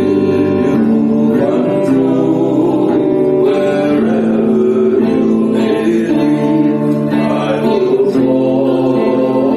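Worship song: singing with guitar accompaniment, the voices holding long notes.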